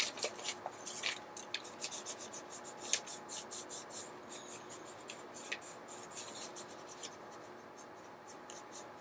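Pen or pencil strokes scratching on paper while drawing and colouring: quick, irregular strokes, busiest in the first half and thinning out later.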